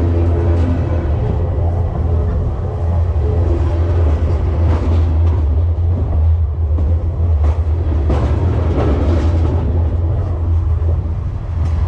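Freight cars rolling past at track level: a steady low rumble with the rails humming, and a few brief sharper rattles from the wheels and cars.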